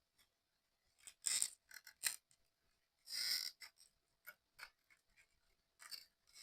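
Small model-kit parts being handled and fitted together: scattered light clicks and scrapes, with a longer scrape about three seconds in.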